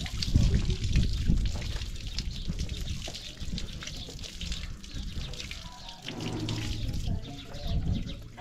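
Water spraying from a garden hose nozzle and splashing onto stone ground, a steady patter of splashes.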